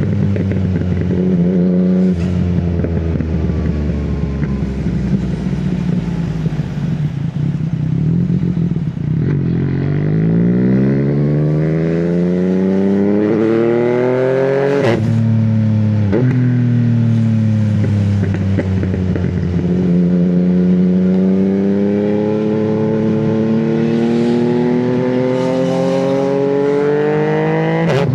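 Yamaha MT-09 three-cylinder engine on the move: the revs sink for several seconds, then climb hard under acceleration. About halfway through and again near the end a sharp crack comes as the revs drop suddenly, the clutchless upshifts of the quickshifter, with the revs climbing again between them.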